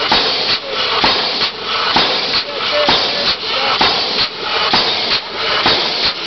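Steam pile driver's hammer working, striking about twice a second in an even rhythm, each stroke with a puff of steam exhaust over a steady hiss.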